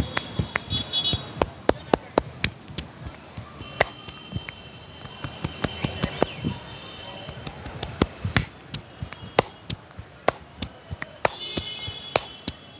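Sharp hand slaps and taps of a barber's head massage striking the head and shoulders, irregular, several a second at first, sparser in the middle, then quick again near the end.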